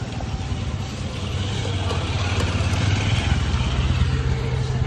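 Small motorcycle and scooter engines running at low speed, a steady low hum that grows louder in the second half.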